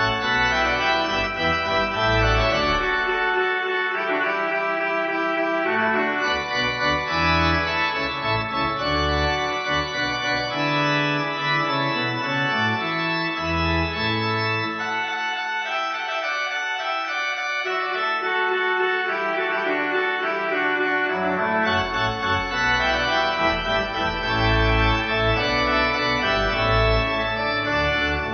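Pipe organ music: sustained chords over deep pedal bass notes, the bass dropping out for several seconds midway before coming back in.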